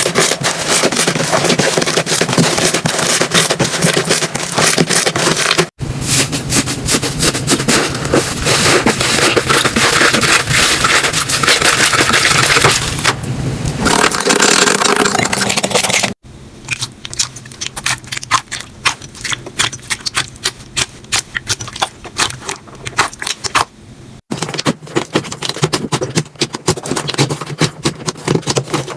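Slime being squeezed and worked by hand, giving dense crackling and popping clicks. It changes abruptly three times as different slimes follow one another, with a quieter, sparser stretch of clicks from about 16 to 24 seconds in.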